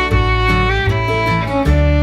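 Instrumental background music: held melody notes over a bass line that changes note every second or so.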